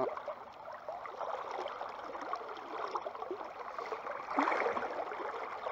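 Creek current rushing and gurgling, a steady watery hiss that swells briefly about four and a half seconds in.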